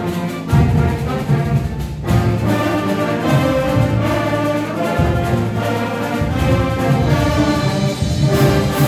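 Student concert band playing a full-ensemble passage: woodwinds and brass holding sustained chords over a strong low bass line.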